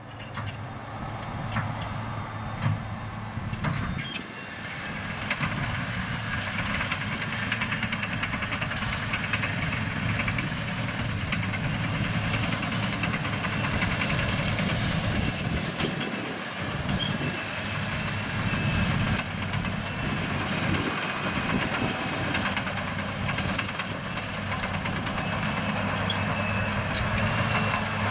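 Caterpillar 963C tracked loader's diesel engine running steadily as the machine travels and pushes dirt with its bucket, with scattered metallic clanks and knocks from the crawler tracks and bucket.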